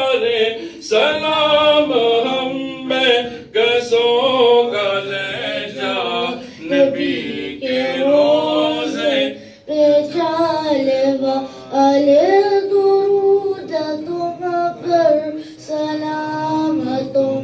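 Unaccompanied devotional singing of an Urdu salaam to the Prophet, a boy's high voice sung into a hand-held microphone, in long, ornamented phrases with brief breaks between them.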